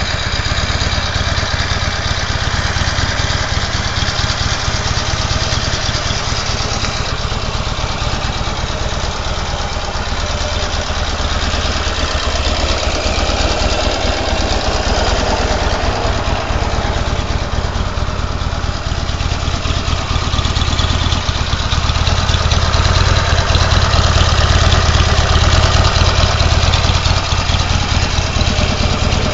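Buell XB12S's air-cooled 1203 cc V-twin engine idling steadily, a deep, even low rumble that grows slightly louder in the last third.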